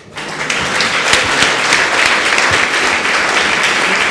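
Audience applauding: many hands clapping together, swelling over the first second and then holding steady.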